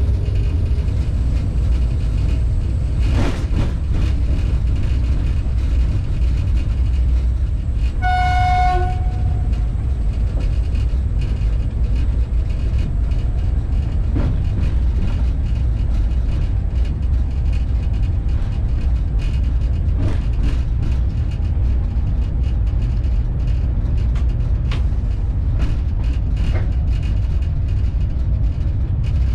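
Railway locomotive running along the line, heard from the cab as a steady low rumble with occasional knocks. About eight seconds in, the horn gives one short blast of under a second.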